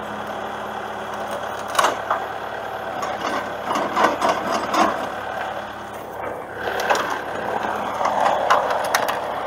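Scattered knocks and clanks of wood and metal as heavy machinery is handled on wooden skids, over a steady background noise, with a cluster of sharp knocks around four seconds in and a rougher stretch near the end.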